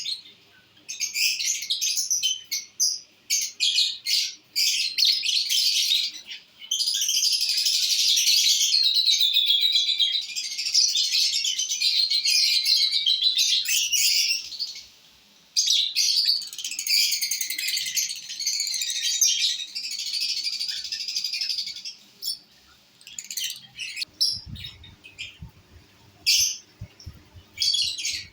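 Lovebirds chattering in a dense run of rapid high-pitched chirps, broken by a few short pauses, with some faint low thuds near the end.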